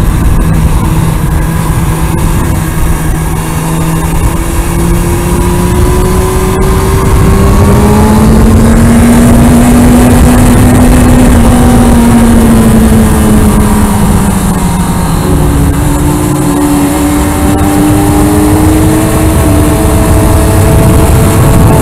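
Kawasaki ZX-6R inline-four sport-bike engine running hard at track speed. Its note climbs slowly, drops back about two-thirds of the way through, then climbs again, all under a heavy rush of wind noise.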